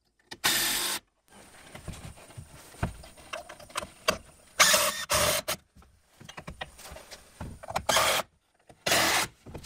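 Craftsman cordless impact driver driving screws into wood in short bursts, five in all, each under a second, with pauses of a few seconds between them.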